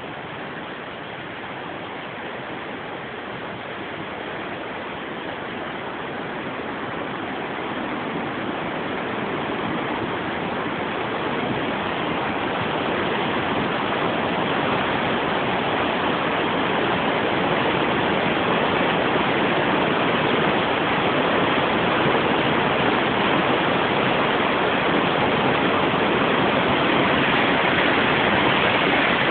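Flooded river water rushing, a steady noise of fast-moving water that grows steadily louder.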